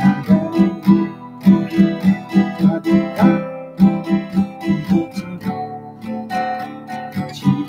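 Acoustic guitar played solo, chords picked in a steady, even rhythm with a clear bass line.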